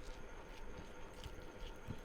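Faint mouth sounds of a person chewing food, with scattered soft clicks and smacks and a low thump near the end.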